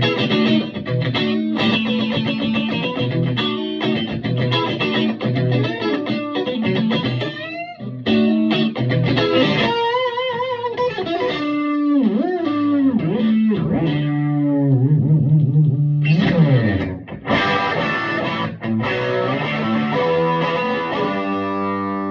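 Electric guitar played through a Vintage Sound Amp's tweed channel with its volume on 7, on the edge of breakup. Quick picked lines and chords give way to bent notes with vibrato about halfway through, and it ends on a ringing chord.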